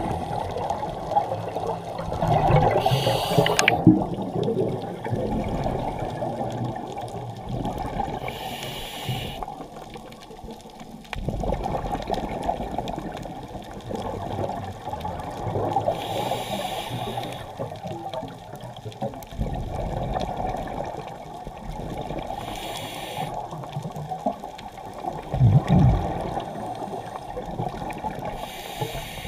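Scuba diver exhaling through a regulator underwater: a bubbly rush about every six seconds, five times, over a steady muffled underwater rumble.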